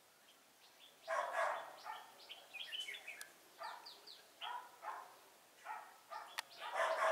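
Red-whiskered bulbuls singing in short chirpy phrases, mixed with a dog barking, loudest about a second in and again near the end, plus a couple of sharp clicks.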